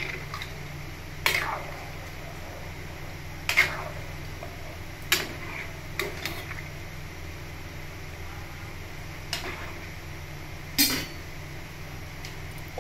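Steel ladle clinking against a metal cooking pot while stirring a meat curry, about eight separate sharp clinks spaced out over the stretch, over a steady low hum.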